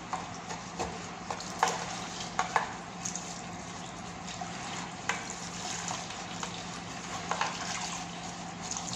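Paintbrush scrubbing inside a differential housing wet with oily liquid, a steady wet swishing and sloshing, with several sharp clicks and knocks of the brush and metal against the housing.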